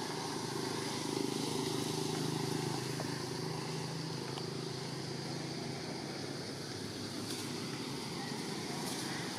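A motor vehicle's engine drones steadily, strongest in the first half and then fading.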